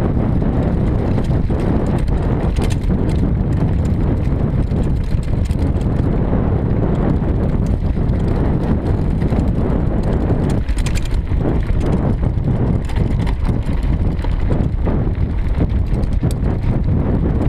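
Mountain bike rolling steadily down a dirt track: tyres crunching and the bike rattling over bumps, mixed with wind buffeting the microphone of a handlebar-mounted camera.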